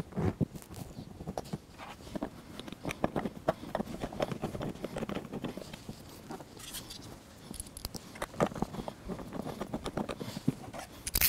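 Irregular knocks, clunks and scrapes from a motorcycle seat being turned over and handled on a metal worktable while a flat steel bracket is pushed into place in its hard plastic underside. A sharper knock comes near the end.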